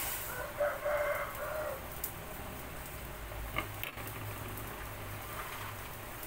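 A rooster crows once near the start, lasting about a second and a half, over the steady bubbling of a pot of fish and pechay soup at the boil. A short click comes about three and a half seconds in.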